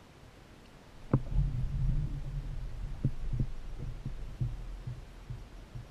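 Low, irregular thuds and knocks through a plastic kayak hull as the standing angler shifts his weight on it, starting with a sharp click about a second in.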